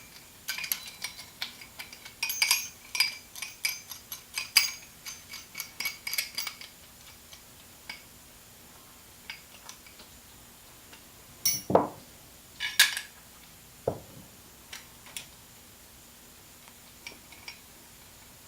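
Metal-on-metal clinks of 1/2 inch wrenches working the nuts on a threaded rod as they are tightened to compress the selector fork's spring. There is a quick, irregular run of clinks for the first six seconds or so, then scattered single clinks, with a couple of louder knocks about twelve seconds in.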